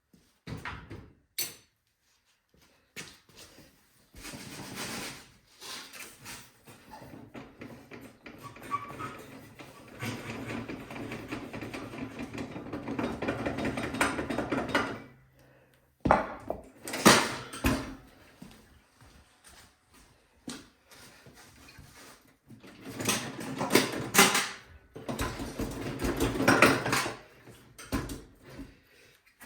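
Hand wrenches working on a snowblower's bolts and wheels: metal clinks, knocks and rattles, with a longer run of rapid clicking near the middle and another near the end.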